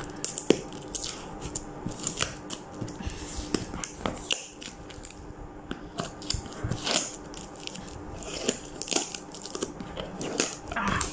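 Plastic tape wrapping being picked at and peeled off a cardboard box by hand: irregular crinkling, crackling and small tearing sounds.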